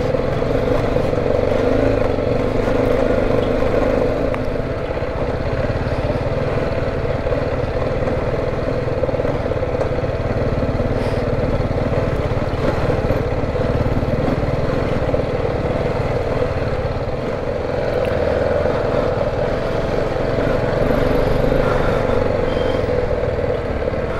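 BMW G310 GS single-cylinder motorcycle engine running steadily while riding a rough, muddy dirt track, with low rumble from the ride.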